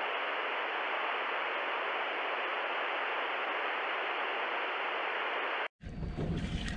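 Steady, even hiss like static that cuts off abruptly about a second before the end, followed by lower, uneven rumbling noise.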